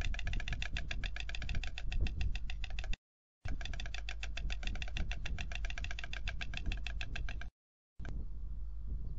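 White stork clattering its bill in the head-thrown-back display, a rapid, even rattle of knocks. The rattle breaks off into sudden silence twice, for about half a second each, about 3 s and 7.5 s in. Near the end the clatter stops and only wind on the microphone remains.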